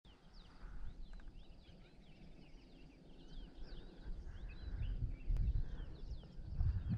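Many small birds chirping and twittering in the bush, with a low rumble on the microphone that grows from about halfway.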